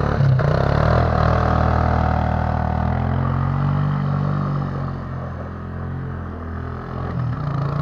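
Quad bike (ATV) engine revving and easing off as the quad drives circles in snow, its pitch rising and falling. It grows fainter for a couple of seconds past the middle as the quad moves farther off, then comes back up near the end.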